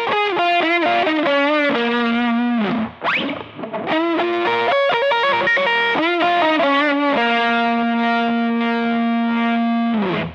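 Harley Benton TE-52 Telecaster-style electric guitar played through distortion: a lead line of bent, wavering notes with a quick rising slide about three seconds in, then one note held from about seven seconds in until it cuts off suddenly near the end.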